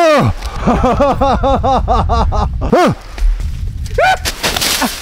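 A man laughing: a quick run of short pitched notes, each rising then falling, about four a second, followed by two longer, higher cries.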